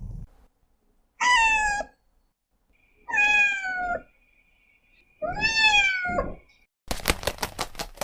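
A cat meowing three times, each meow falling in pitch, followed near the end by a rapid run of clicks.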